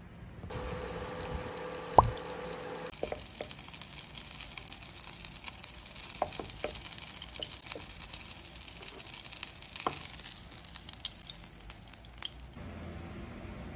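Oil sizzling and crackling in a frying pan as two patties fry, with scattered small pops. Before the frying starts there is a steady hum and a single sharp knock about two seconds in.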